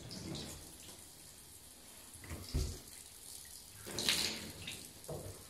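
Thin stream of water from a handheld shower trickling into a bathtub and splashing as a kitten and a hand break the flow. A low thump comes about two and a half seconds in, and the loudest moment is a hissing splash about four seconds in.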